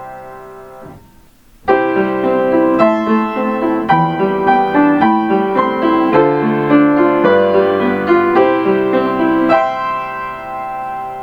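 Piano playing a Kintetsu limited express onboard chime melody. A held chord fades out, and after a short pause a quick phrase of notes begins about two seconds in. It ends on a held chord that rings out near the end.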